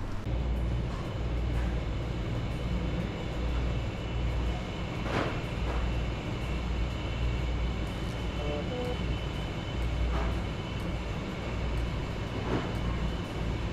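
Steady low rumble of a large dining hall's room tone, with a faint high whine running through it and a light knock about five seconds in.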